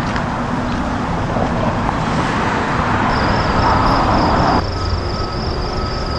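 Steady rumble and rushing noise of a train running, heard from the locomotive cab. About four and a half seconds in the sound cuts abruptly to a different steady background with a high pulsing trill and a thin steady tone.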